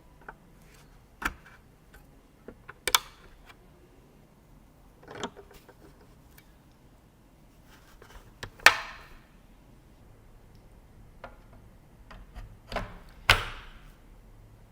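Irregular sharp clicks and knocks of computer parts and tools being handled during a PC build, with two louder knocks, one a little past the middle and one near the end.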